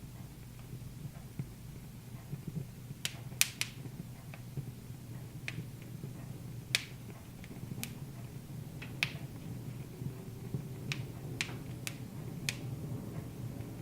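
Wood fire crackling in a fireplace: irregularly spaced sharp pops, about a dozen, over a low steady hum.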